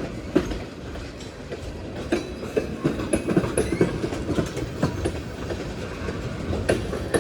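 Freight train tank cars rolling past, steel wheels clicking irregularly over the rail joints over a steady low rumble.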